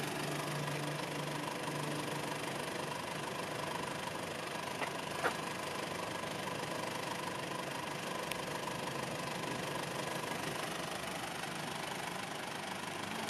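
1996 Mitsubishi Pajero's 2.8-litre 4M40 turbo-diesel engine idling steadily, with two short clicks about five seconds in.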